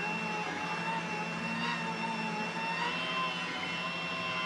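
Polymaker Polysher's motor slowly raising the parts tray out of its open chamber: a steady mechanical whine with a slightly wavering tone.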